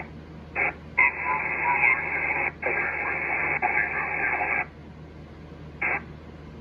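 Icom IC-7300 receiver audio on 10-metre upper sideband: hiss and garbled, unreadable snatches of sideband signals, cut off sharply above the voice range. It comes and goes in bursts, with a long loud stretch from about one second to four and a half seconds in.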